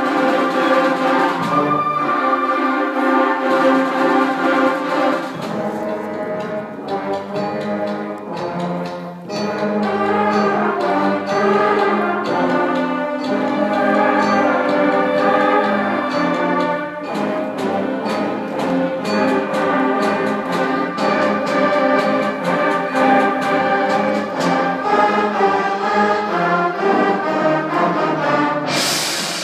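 Student concert band playing, holding full chords that change every few seconds; a sudden crash near the end, after which the music drops away.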